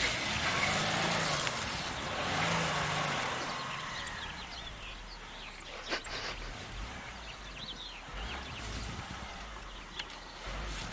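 A motor vehicle's engine running under a steady rushing noise, with a sharp knock about six seconds in.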